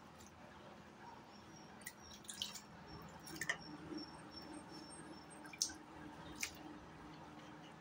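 Faint wet drips and a few soft clicks as pieces of washed, drained raw beef are put into a metal pot of onions and spices, a little at a time.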